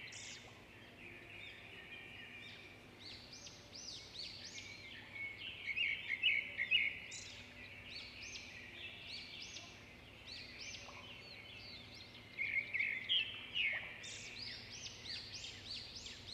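Several small birds chirping and calling in quick, overlapping phrases, busiest about six seconds in and again between about twelve and fourteen seconds, over a faint steady hum.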